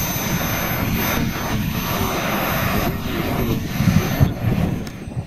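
The four model gas turbine engines of a large radio-controlled Avro Vulcan running, a loud steady rush of jet noise with a thin high whine over it, on the runway. A few heavier low thumps come near the end.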